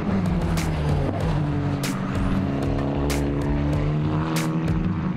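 Turbocharged Formula 4 race car's engine running on track, its pitch dipping briefly and then climbing as it accelerates, with several sharp cracks.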